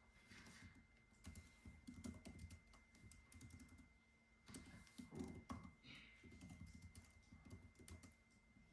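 Quiet typing on a computer keyboard: irregular runs of keystrokes with a short pause around the middle, trailing off near the end.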